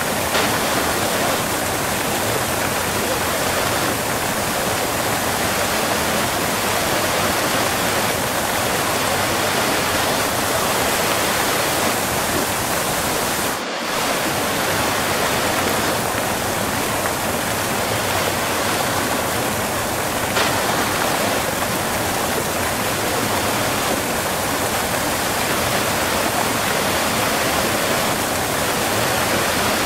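Waterfall heard close up: a steady, dense rush of falling water, with a momentary dip in level about halfway through.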